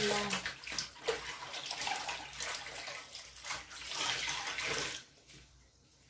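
Rinse water sloshing and splashing in a twin-tub washing machine as wet laundry is rinsed, stopping suddenly about five seconds in. The rinse water has no suds left.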